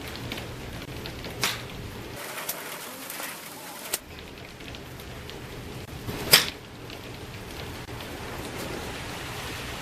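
Golf club swings with sharp cracks of the clubhead striking the ball: two clear hits about five seconds apart, the second the loudest, and a softer click in between. Steady outdoor background noise runs under them.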